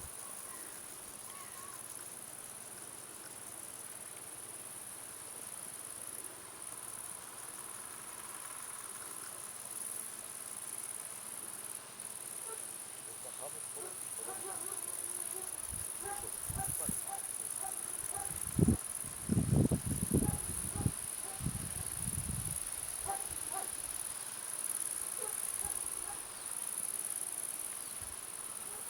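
Steady high-pitched insect chirring. A cluster of loud, low thumps comes a little past the middle.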